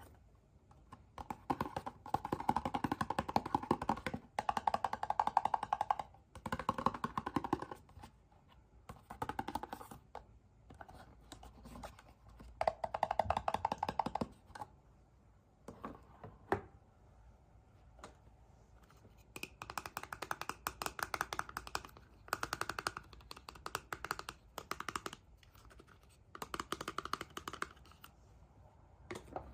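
Packaging being handled and torn open: bursts of crackly rustling and ripping, each lasting a second or two, with short pauses between them.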